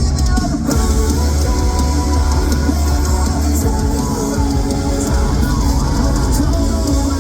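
Metalcore band playing live: an instrumental passage of distorted electric guitars over bass and drum kit, with no singing.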